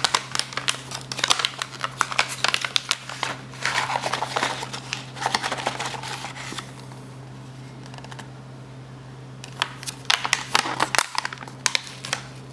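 Foil trading-card pack wrapper crinkling as it is peeled open and handled, in a dense crackly stretch for the first six seconds or so and another burst around ten seconds in.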